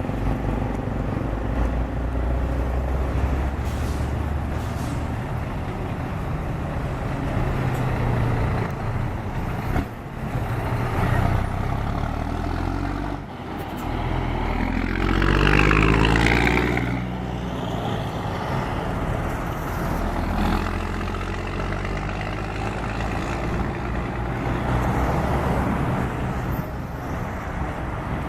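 Car engine running with a deep exhaust rumble, blipped a few times and revved hard once about halfway through, rising and falling back to idle.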